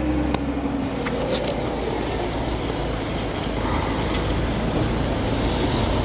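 Steady low rumble of outdoor background noise, with a few sharp clicks in the first second and a half.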